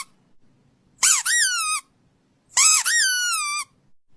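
Dog's rubber squeaky toy squeezed twice. Each high-pitched squeak lasts under a second, jumping up in pitch and then sliding down.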